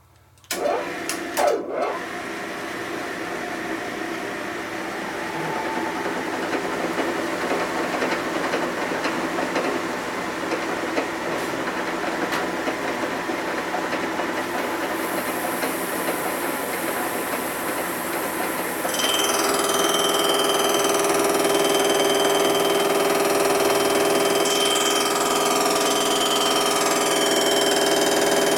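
A metal-cutting machine tool starts with a couple of knocks and runs steadily, ready to cut a lip off a motorcycle engine part. About two-thirds in, it gets louder and a steady high whine joins the running.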